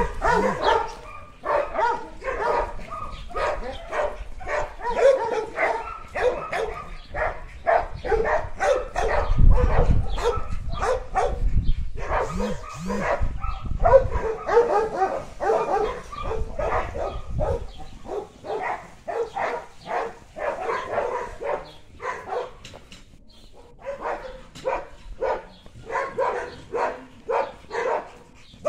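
Dogs barking over and over, several barks a second, as they play-fight, with a short lull about three-quarters of the way through.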